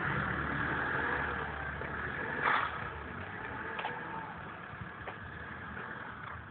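Toyota Hilux pickup driving slowly away, its engine running and fading steadily. A short knock about two and a half seconds in.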